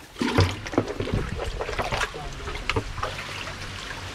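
Hands splashing and sloshing through a shallow muddy pool, groping for fish, in a quick irregular run of splashes that starts just after the beginning.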